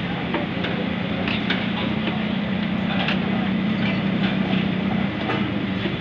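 Busy roadside food-stall ambience: a steady low hum under a wash of street noise, with scattered sharp clicks and clinks around the griddle.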